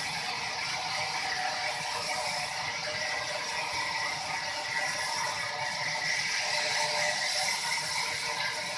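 Sawmill machinery running steadily with a continuous mechanical rattle and clatter.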